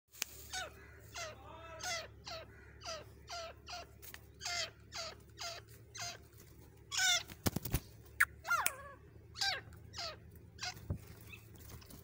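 Female grey francolin (desi teetar) calling: a steady series of short calls, each falling in pitch, about two a second. A few sharp clicks come about halfway through.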